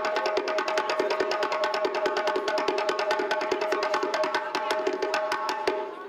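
Amplified djembe played with fast, dense hand strokes over a steady held note, the music stopping abruptly at the very end.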